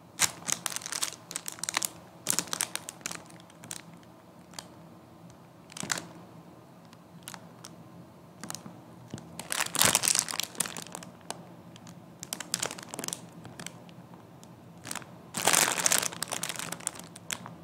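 Thin plastic bag crinkling in irregular bursts as it is handled and pulled off a boxed speaker, loudest about ten seconds in and again near the end.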